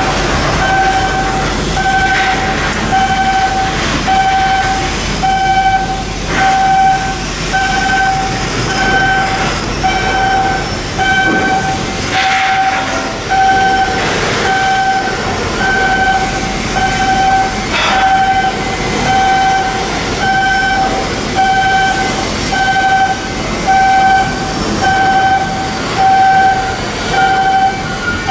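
A warning alarm sounding a steady repeating beep, one beep about every second and a bit, over general industrial work noise, with a single sharp knock partway through.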